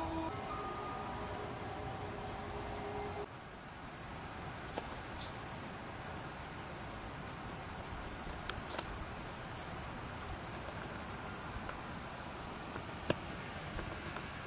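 Quiet lakeside ambience with a steady high-pitched insect trilling, like crickets, and a few sharp isolated ticks scattered through it. A few held tones fade out and stop about three seconds in.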